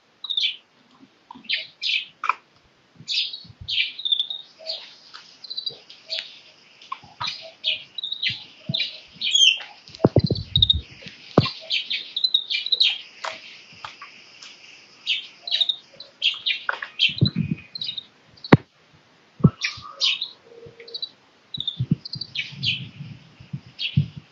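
Grey-capped greenfinch chirping and twittering in quick, repeated short calls, with a few dull low thumps, the strongest about ten seconds in.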